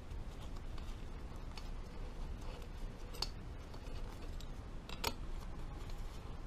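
A few light metallic clicks and taps as steel bolts and pump parts are handled, over a steady low background hum. The clearest click comes about five seconds in.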